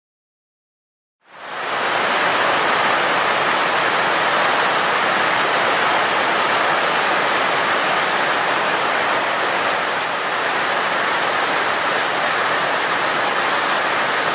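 Heavy tropical rain pouring down, a loud, steady hiss that fades in about a second in and holds evenly throughout.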